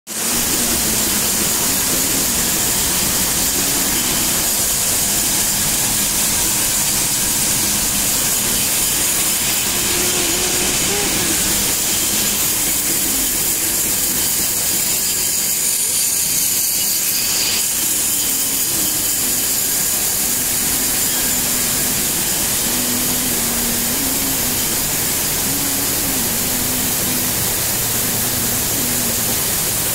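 Chana roasting machine running: a steady, loud hiss and rumble from its furnace and turning roasting drum.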